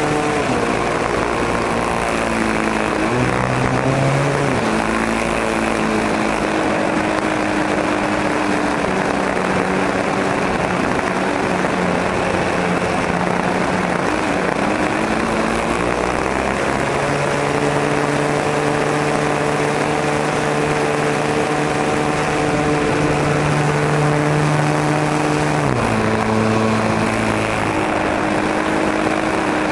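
O.S. 40 model-airplane engine and propeller running in flight, heard from the plane itself, its pitch shifting with the throttle: it drops just after the start, jumps briefly about four seconds in, holds steady through the middle, and drops again about four seconds from the end. A steady rush of airflow runs underneath.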